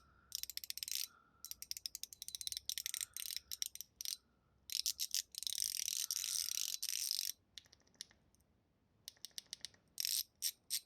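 Brushed zirconium mechanical fidget slider being slid back and forth, its spring-and-ball mechanism clicking in quick rattling runs, with a long dense run a little past halfway. The clicking is a bit quieter and softer than a stainless steel slider's.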